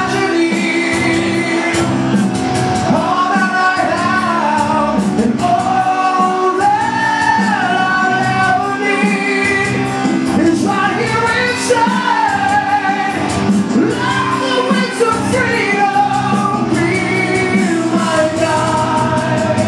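Male lead vocalist singing a melodic line with long held and gliding notes over a full heavy metal band, recorded live.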